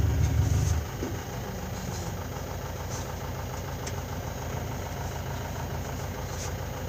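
Safari jeep's engine, heard from inside the vehicle: a loud low rumble for about the first second, then settling to a steady idle.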